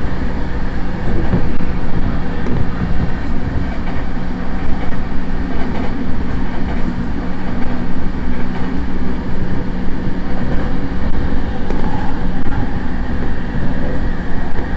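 Interior running noise of an E233-7000 series electric motor car, its traction drive giving a steady humming growl like an old nose-suspended motor. This is an abnormal noise peculiar to this one car.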